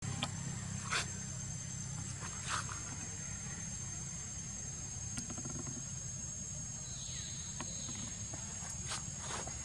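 Forest ambience: a steady high insect drone over a low rumble, with a few scattered short rustles and clicks and a faint falling whistle about seven seconds in.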